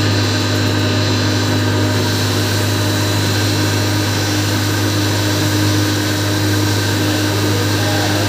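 Sugar pulverizer grinding mill running steadily under load as sugar is fed into its hopper: a steady, loud motor hum with a faint high whine.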